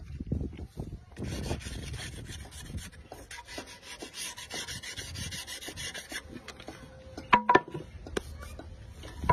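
Hand-sanding the edge of a willow cricket bat: a rapid hiss of back-and-forth rubbing strokes from about a second in until about six seconds. Near the end come two sharp wooden knocks in quick succession.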